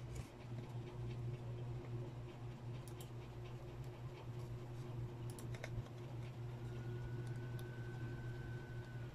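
Scattered small clicks and light scraping of a thin metal pick working corrosion off a water-damaged phone's midframe, over a steady low hum. A faint thin steady tone comes in for the last couple of seconds.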